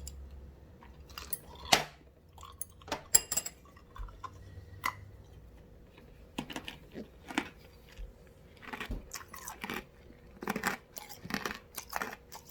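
Ice being bitten and chewed: sharp, irregular crunches, a couple of loud cracks in the first few seconds, then a steady run of crunching chews in the second half.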